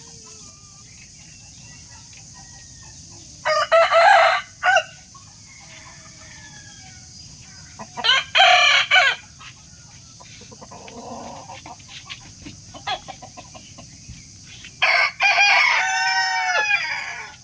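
Rooster crowing three times, about four and seven seconds apart; the last crow is the longest, about two seconds.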